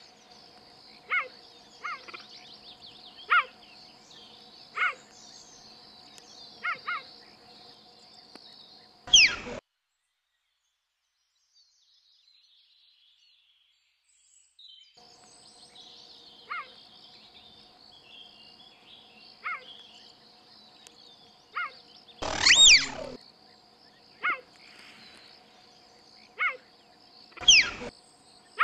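Cheetah chirps, short and bird-like, coming every second or two over a steady high insect drone. Three louder calls slide sharply down in pitch. The sound cuts out completely for about five seconds in the middle.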